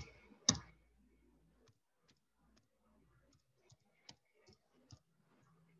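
Computer keyboard being typed on: two sharper key clicks in the first half second, then a sparse run of faint, irregular keystrokes.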